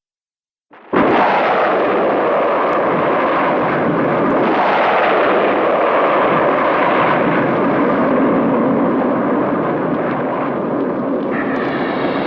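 Cartoon rocket thruster sound effect: it starts abruptly about a second in and runs as a loud, steady rush of noise without rising or falling in pitch. Near the end a higher, fluttering layer joins it.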